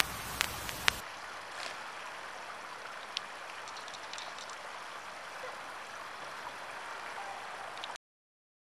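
Water splashing steadily in a stone plaza fountain, an even hiss. A few sharp clicks sound in the first second, and the sound cuts off abruptly near the end.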